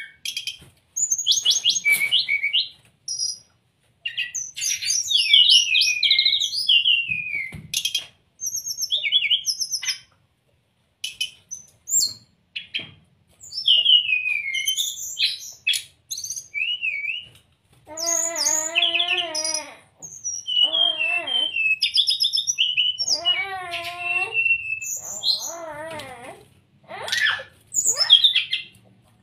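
Brown-chested jungle flycatcher singing in bursts of quick, high chirps, trills and down-slurred whistles. After about 18 seconds come lower, wavering warbled phrases with rich overtones.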